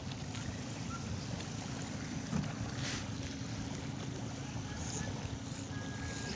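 Steady wind rumble on the microphone mixed with waves washing on a beach.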